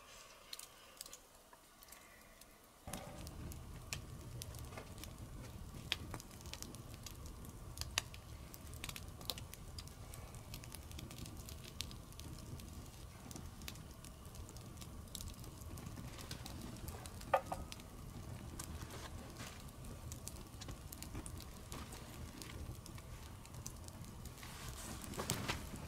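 Open wood campfire burning, its wood crackling and popping in irregular sharp snaps over a steady low rumble of flame. It starts about three seconds in, after a quiet stretch with a few light clicks.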